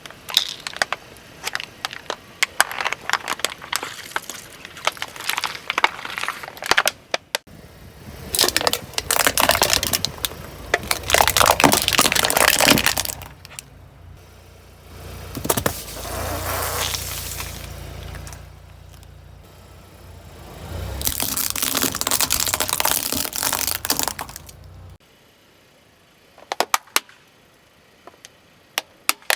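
Car tyre rolling over and crushing crunchy objects: dense crackling and snapping at first, then a steady low rumble of the car with three loud runs of crunching, and a few scattered sharp snaps near the end.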